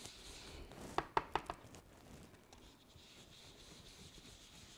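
Blender brush working ink onto cardstock: a faint soft brushing, with a quick cluster of three or four light taps about a second in.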